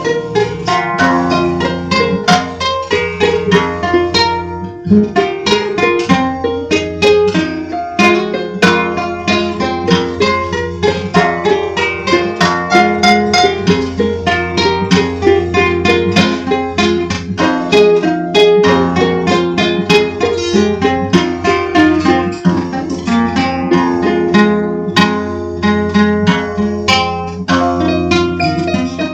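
Instrumental dark folk music: quick plucked-string notes over a steady low drone.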